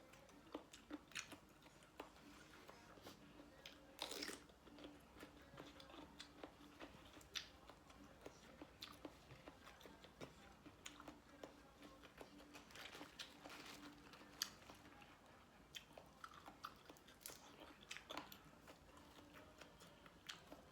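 Faint close-up chewing and biting: scattered short wet smacks and crunches of someone eating spicy papaya salad with shrimp and squid.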